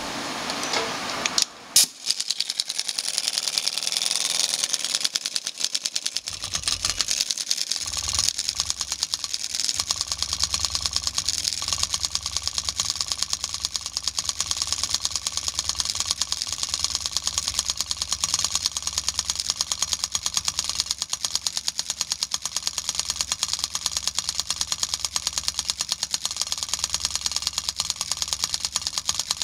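Engine valve being lapped into its seat with a valve lapping tool and grinding compound: a steady, rapid rattling tapping with a hiss that runs on without a break after a short sharp sound about two seconds in.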